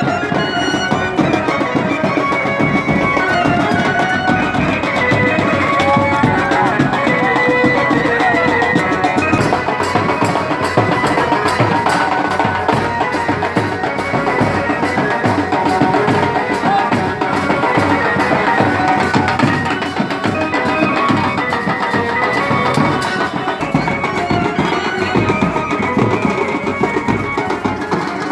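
Music with steady, fast drumming and a wavering melody over it.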